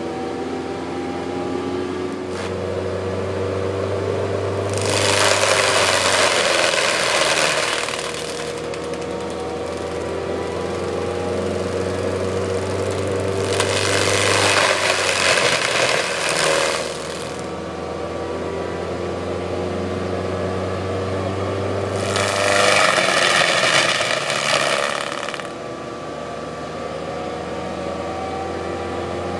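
John Deere 200C excavator running with its hydraulic grinding head spinning in a steady whine, and three loud spells of grinding about 5, 14 and 22 seconds in as the head is worked down into a 14-inch red oak.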